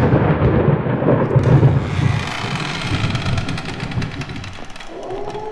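Deep, thunder-like rumbling sound effect, loud at first and fading over about three seconds. Near the end a steady, slightly rising siren-like tone begins.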